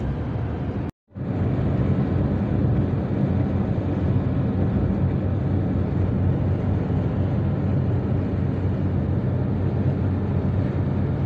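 Steady road and engine noise heard inside a car's cabin while driving at motorway speed: a low drone with tyre roar. The sound breaks off for a moment about a second in, then carries on unchanged.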